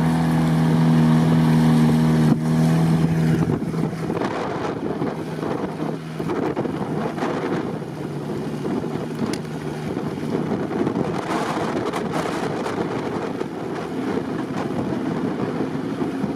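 A ZAZ Zaporozhets off-road car's engine held at steady high revs in deep swamp mud. About three and a half seconds in the engine tone falls away into a rough rushing noise, with wind buffeting the microphone.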